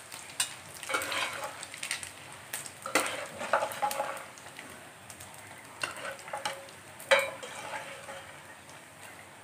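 A metal slotted skimmer scraping and clinking against the side of a pot as crisp deep-fried pieces are scooped out of hot oil, over a light sizzle that dies away toward the end. The sharpest clinks come about three and seven seconds in.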